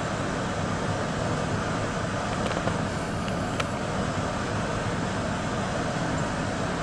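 Steady rushing background noise with no birdsong standing out, and a couple of faint short clicks in the middle.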